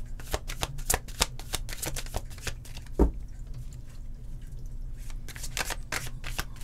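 A gold-edged tarot deck being shuffled by hand, the cards flicking and slapping against each other in quick, uneven clicks, several a second, sparser for a while after the middle. One louder thump comes about three seconds in.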